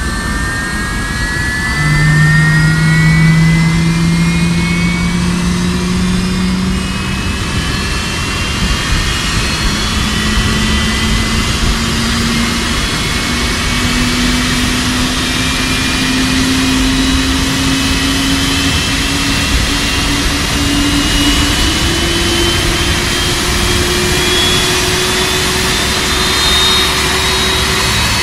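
Jet engine running: a steady rush of noise with a whine whose pitch climbs slowly, in small steps, throughout.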